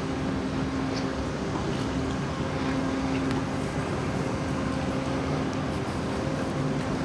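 Steady machinery hum with a constant low tone, from the moored motor yacht's onboard machinery running beside the quay.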